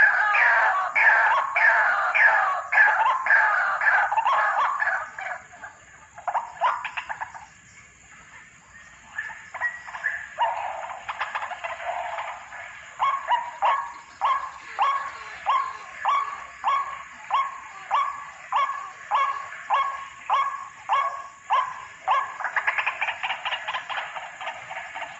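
White-breasted waterhen (ruak-ruak) calling: a dense run of repeated notes, a lull about a quarter of the way in, then a steady series of calls at about two a second that thickens again near the end.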